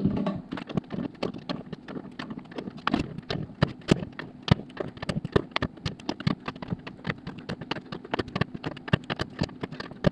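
Speed wrench turning the bolts of a wheel's beadlock ring, a quick, uneven run of metallic clicks and rattles several times a second, as each bolt is snugged up before final torquing.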